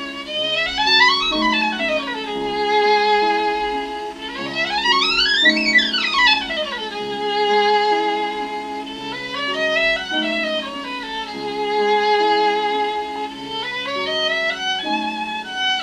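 Violin music played back from CD through a 6BM8 (6F3P) ultralinear single-ended valve amplifier and bare Isophon oval loudspeakers. A violin with vibrato plays fast scale runs that sweep up and back down, about a second in, near the middle and twice more later, over a lower accompaniment.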